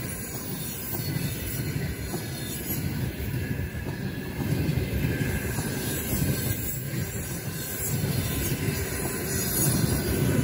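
Train rolling along the track: a steady rumble of wheels and cars, a little louder from about four seconds in, with a faint high wheel squeal.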